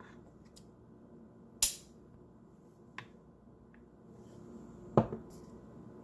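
Sharp clicks and knocks of a flashlight and its charger being handled: one about a second and a half in, a faint one about three seconds in, and the loudest about five seconds in, followed closely by a smaller one.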